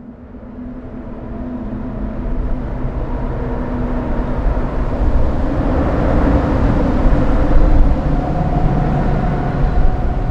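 Road traffic on the Theodor Heuss Bridge heard from beneath the deck, as a dense low rumble that swells from quiet to loud over the first few seconds and then holds. Steady humming tones run over it, part of the soundscape composition.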